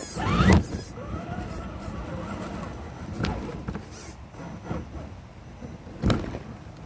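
Electric motor and gears of an RC rock crawler whining as it is driven over stream rocks, rising steeply in pitch as it throttles up near the start, then wavering up and down. A few sharp knocks as it climbs over the stones.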